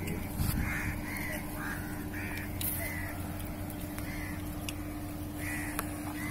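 Birds calling over and over in short calls, over a steady low hum.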